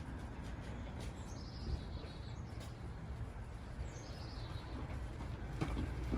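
A songbird sings two short trilled phrases, about a second and a half and four seconds in, over a steady low rumble of outdoor background noise.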